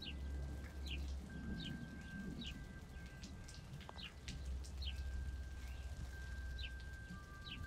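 Ambient soundscape of a low rumble and a rain-like hiss. A short falling chirp, like a bird call, repeats about every second. Two thin steady tones sound over it, the lower one coming in near the end.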